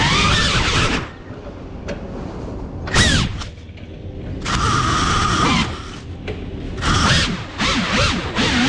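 FPV racing drone's brushless motors and propellers: the whine cuts back sharply about a second in, then comes in short throttle blips, a steady high whine for about a second in the middle, and several more quick blips near the end.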